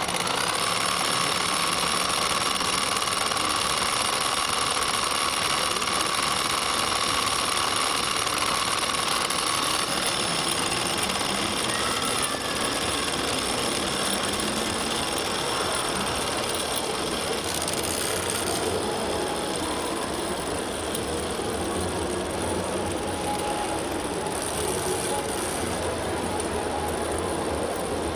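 Large-scale RC model tractor pulling a loaded manure spreader, its motors and gears running with a steady mechanical whir and a high whine that fades about ten seconds in.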